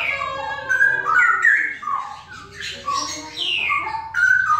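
Caged straw-headed bulbuls (cucak rowo) singing: continuous phrases of quick, rich notes, many sliding down in pitch, with a brief lull about two seconds in.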